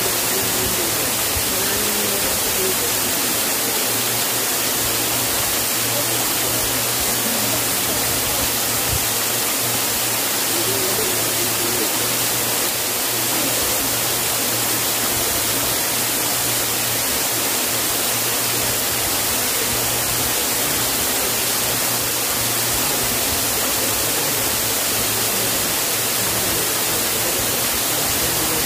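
Steady, loud rushing of a waterfall.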